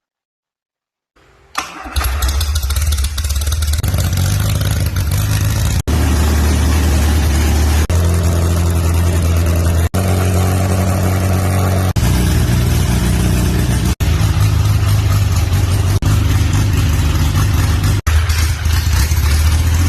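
1968 Morris Cooper Mk 1's rally-tuned four-cylinder A-series engine starting about a second and a half in, then running loud and steady at a fast idle. The sound is broken by very short gaps every couple of seconds.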